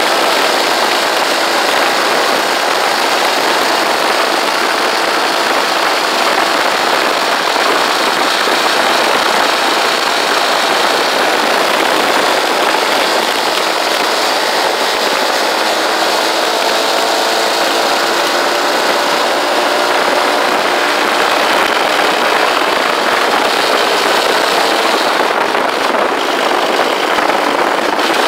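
Motorcycle riding at a steady speed: a constant engine drone under a heavy rush of wind on the microphone.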